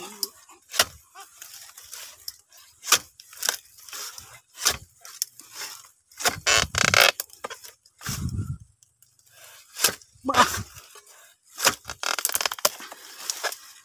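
Repeated sharp strikes of a pole-mounted harvesting chisel chopping into the stalk of an oil palm fruit bunch, at irregular intervals of roughly half a second to a second. There is a longer crunching rustle about six seconds in and a dull thump about eight seconds in.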